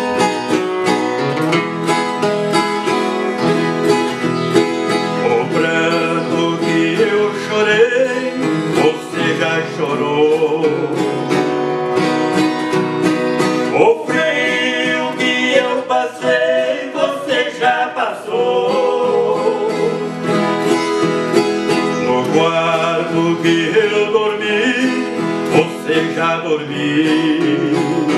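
Instrumental break in a slow Brazilian caipira song: a viola caipira and an acoustic guitar picking and strumming the tune together.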